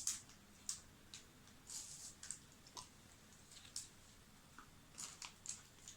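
Faint, scattered crunches and clicks of someone biting into and chewing a milk-chocolate-covered hazelnut wafer.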